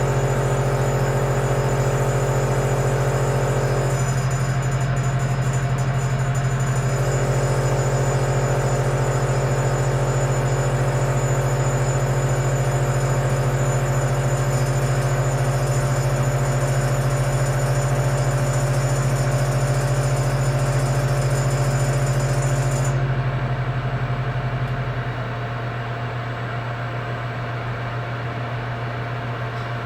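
Fan of a Hitachi Healthy Chef MRO-RV2000 oven-microwave running during its first empty burn-in heating, with a steady hum and several tones above it, including a high whine. The noise is the fan striking something as it spins, an out-of-the-box defect. About 23 seconds in the high whine stops, and a couple of seconds later the sound drops a little.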